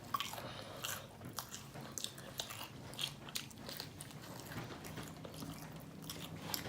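Close-up eating sounds: biting into and chewing crispy fried chicken, with irregular crisp crackles from the crust.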